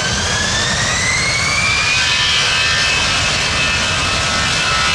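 Airbus A320 jet engines spooling up for takeoff: a high whine rises in pitch over the first two seconds and then holds, over a steady rumble, as the airliner starts its takeoff roll.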